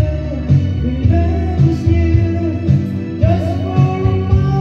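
Karaoke: a man singing into a microphone over a backing track with a steady beat.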